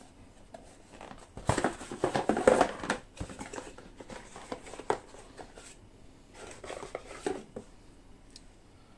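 A pack of model paints being opened and handled: plastic packaging crinkling and rustling in two spells, with a few small clicks and knocks of the containers.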